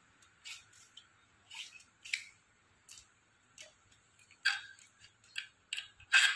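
Irregular short clicks and scrapes, about a dozen, of an e-scooter's front brake cable and lever being worked by hand at the handlebar. The loudest come near the end.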